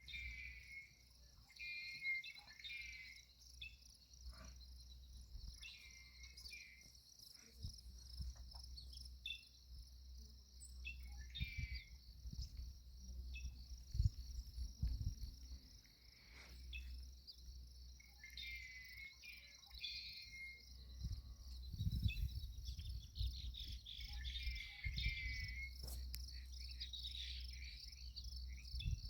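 Crickets chirping in a steady, pulsing chorus at dusk, with other short chirping calls breaking in every few seconds and a low rumble underneath.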